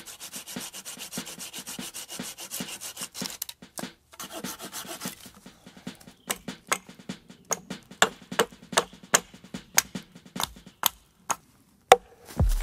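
A blade scraping bark off a wooden pole in fast, even strokes, then a hatchet chopping at the pole's end on a log in a run of sharp strikes, about two or three a second, the loudest near the end.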